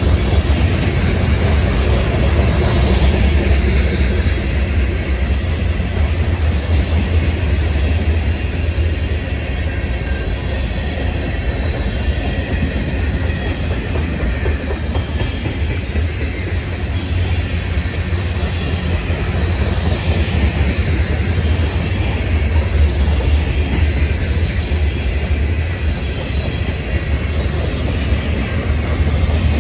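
Freight cars of a long mixed manifest train rolling slowly past, their steel wheels on the rails making a steady low rumble.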